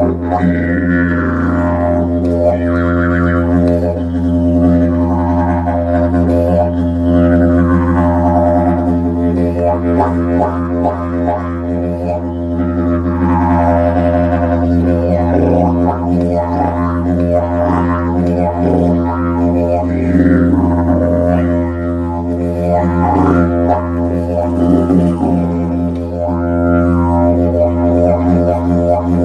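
Didgeridoo played as an unbroken low drone, with bright overtones that sweep up and down every second or two.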